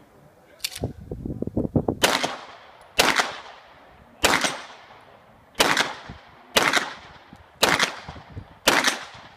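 Seven pistol shots fired roughly a second apart in a practical-shooting stage, each sharp crack followed by a short ringing tail. Lighter clicks and knocks come just before the first shot.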